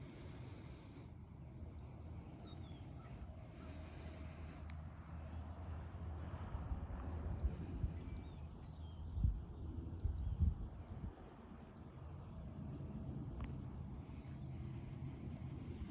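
Quiet rural outdoor ambience: scattered short high chirps, typical of insects, over a low steady hum, with a few low thumps about nine and ten and a half seconds in.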